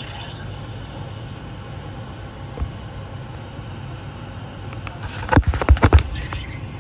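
Furnace blower fan running steadily on its fan-off delay after the burner has shut off. A quick cluster of loud knocks comes about five seconds in.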